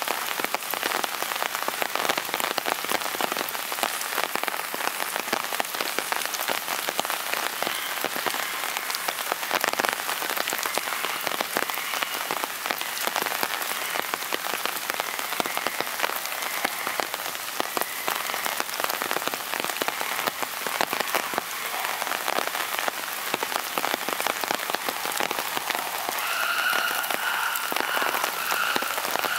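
Steady rain falling, with many small drops and drips pattering on nearby surfaces. Near the end, a high-pitched sound pulses quickly several times over the rain.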